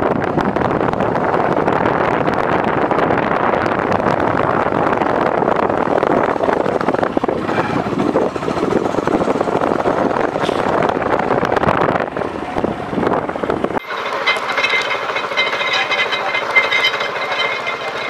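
Rushing wind on the microphone and a running engine while riding along a road. About fourteen seconds in it cuts off abruptly, giving way to a quieter, high, pulsing buzz.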